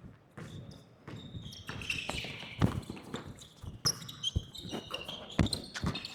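Basketball bouncing on a gym floor in irregular thuds, the loudest about two and a half seconds in and again near the end, amid short high squeaks of sneakers on the court.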